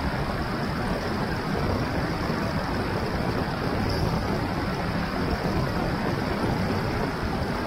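Steady rush of wind over an action camera's microphone on a bicycle coasting fast downhill, mixed with the hum of the tyre rolling on asphalt.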